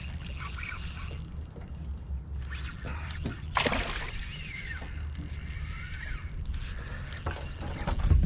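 Fishing reel being cranked, its gears clicking, as a hooked bass is reeled in.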